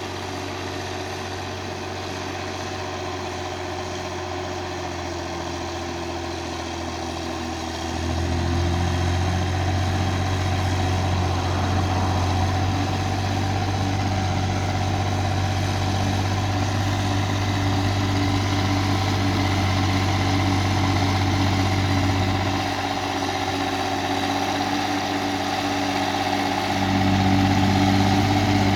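Case 1694 tractor's diesel engine running steadily while ploughing. It gets louder about eight seconds in, eases off a little later, then rises again near the end.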